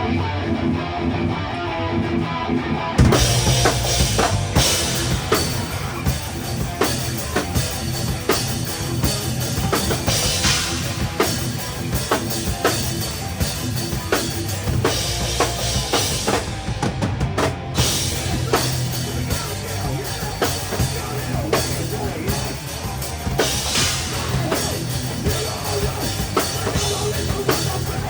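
Live rock band playing: electric guitar alone at first, then the drum kit and the rest of the band crash in about three seconds in and keep going. Drums and cymbals sit loud and close.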